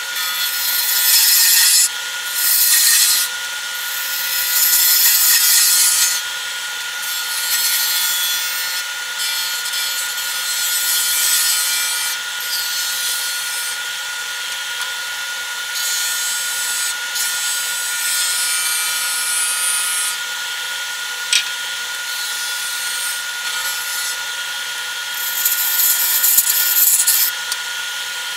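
A wood lathe runs with a steady whine while a turning tool cuts the spinning cherry-wood blank. The cuts come as a series of hissing shaves, each lasting a second or two, with louder passes near the end.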